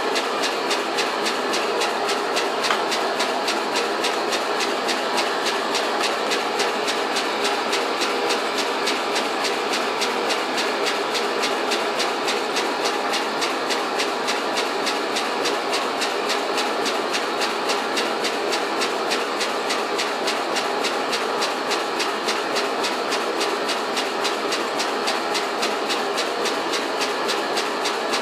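Homemade steam engine, cast from melted aluminium cans, running steadily on steam: a fast, even beat over a constant hiss.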